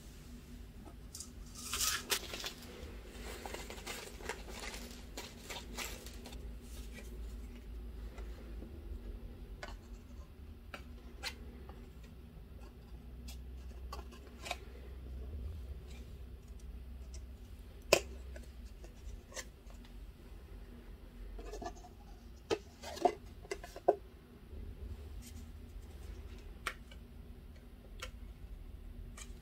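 Small clicks, taps and rustling of card and packaging as wooden stud earrings are pushed through kraft backing cards and fitted with metal backs, with a few sharper clicks about two-thirds of the way through.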